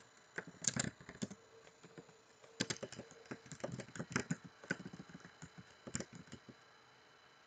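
Typing on a computer keyboard: irregular runs of keystroke clicks, with a lull about two seconds in and quiet near the end.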